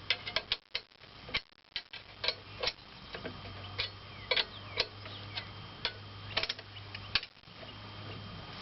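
Irregular metal clicks and clinks of the chainsaw mill's U-bolt clamps and guide frame being loosened and reset by hand, about fifteen sharp ticks over several seconds, over a faint steady low hum.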